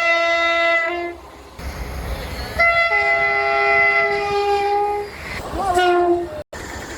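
Train two-tone horn: a blast that drops from its higher note to its lower note, ending about a second in, then train running noise, then a longer horn blast of about two and a half seconds and a short toot near the end.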